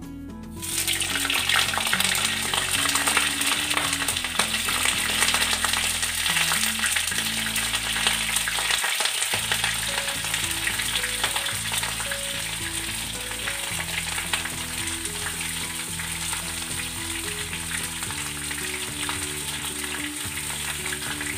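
Cauliflower, flat beans and peas sizzling steadily as they fry in hot oil in a kadai, the sizzle starting about half a second in. Soft background music plays underneath.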